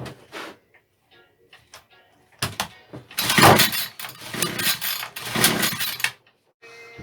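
Titan petrol multi-tool's two-stroke engine being pull-started: about four quick pulls of the recoil starter, each turning the engine over with a rasp, without it catching and running. It is the hard starting that the owner is trying to cure.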